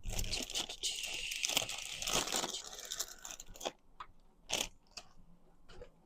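Packaging being handled and opened: dense crinkling and rustling for about three and a half seconds, then a few sharp taps or clicks.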